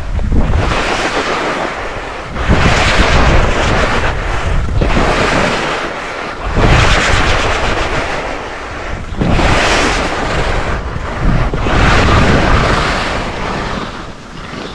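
Skis scraping and hissing across snow through a series of turns, swelling about every two to three seconds, with wind buffeting the microphone.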